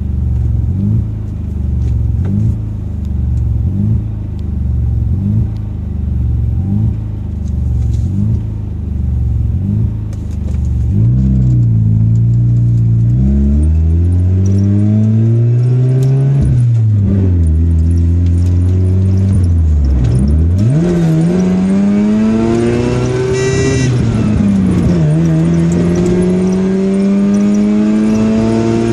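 Mazda RX-7 rotary engine through a cat-deleted dual exhaust with MagnaFlow 10444 mufflers, heard from inside the cabin with the windows up. It idles with an even pulsing for about ten seconds, then revs up and accelerates through the gears, the note dropping at each upshift, about three times.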